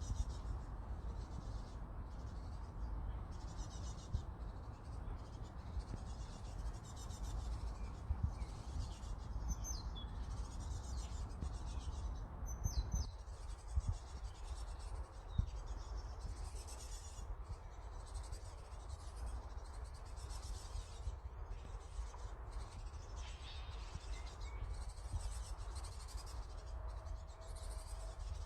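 Wind rumbling and buffeting on the microphone, with insects chirping in short repeated bursts and an occasional quick bird chirp over it.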